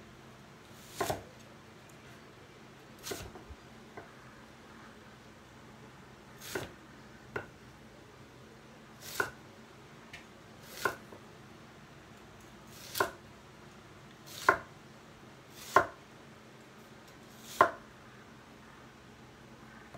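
Cleaver chopping a red onion on a wooden cutting board: about ten separate chops, one every second or two.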